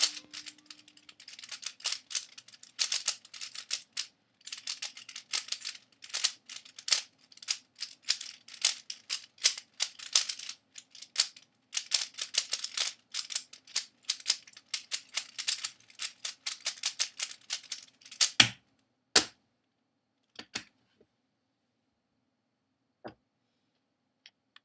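Dayan Zhanchi 3x3 speed cube being turned fast, a dense run of plastic clicking and clacking with brief pauses, then two louder sharp knocks and a few scattered clicks near the end.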